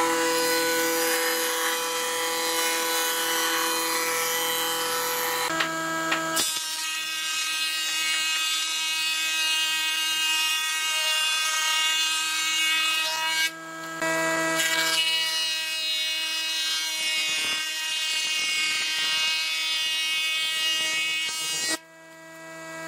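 Woodworking planing machines cutting hardwood boards: first a board edge pushed along a jointer, then boards fed through a thickness planer. A steady machine whine runs over the noise of the cutters, changing abruptly three times, at about 6, 14 and 22 seconds.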